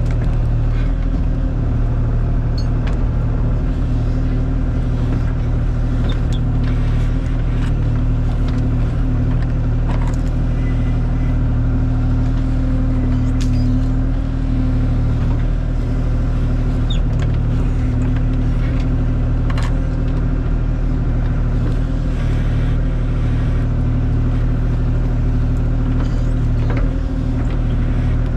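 Kubota KX040 mini excavator's diesel engine running steadily under work, with scattered sharp cracks and knocks.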